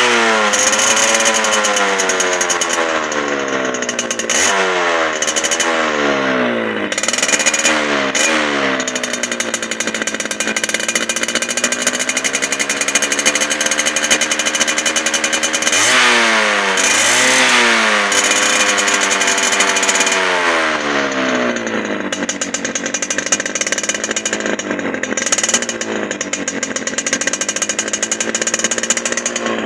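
Small two-stroke motorcycle engine being revved again and again, its pitch rising and falling, with a longer high rev about halfway through and steadier running near the end.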